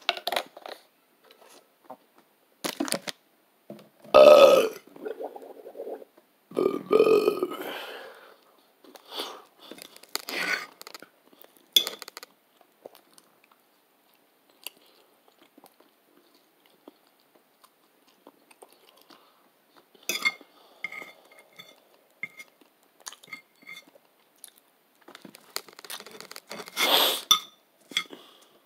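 A man chewing food with scattered wet mouth clicks, and loud burps about four and seven seconds in, with another loud mouth noise near the end.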